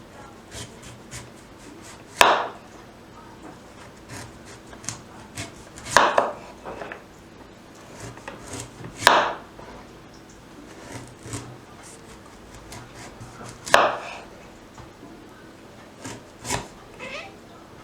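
Kitchen knife chopping food on a wooden cutting board: four sharp cuts several seconds apart, with lighter taps and scrapes between them.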